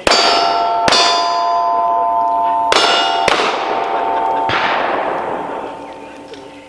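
Five pistol shots at uneven spacing, each hitting a steel target plate that rings with a metallic clang. The ringing of the plates hangs on and fades away over the last couple of seconds.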